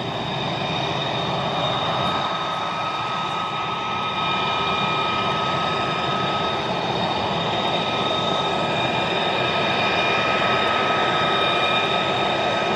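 F-22 Raptor and F-35 Lightning II fighter jet engines running at taxi power: a steady rush with a high turbine whine held at several fixed pitches, growing slightly louder as the jets come closer.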